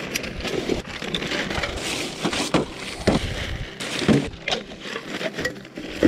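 Thin plastic trash bag rustling and crinkling as plastic bottles are pushed into it, with irregular sharp crackles.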